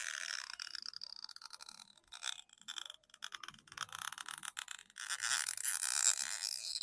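Tweezers scraping and picking at the glue under a phone battery, a fine scratchy crackle with short pauses that gets louder about five seconds in.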